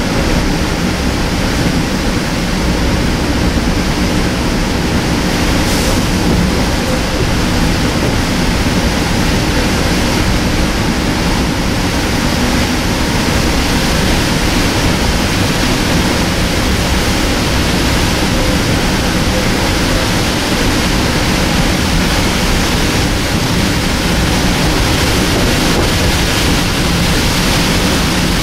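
Steady rushing rumble of a Metro-North M2 electric multiple-unit railcar running at speed, heard from on board.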